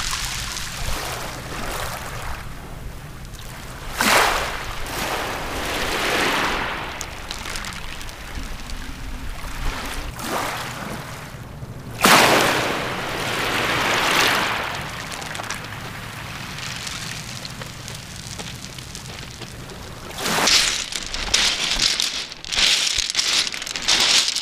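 Small waves washing in and out over a shingle beach, each one rising suddenly and fading over a second or two as the water runs through the pebbles, over a steady low rumble of wind on the microphone. Near the end, footsteps crunch over the shingle.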